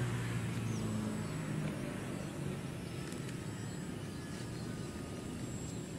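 Propeller and motor of an RC model plane droning in flight, a low pitched hum that fades over the first couple of seconds as the plane moves off. Faint bird chirps sound in the background.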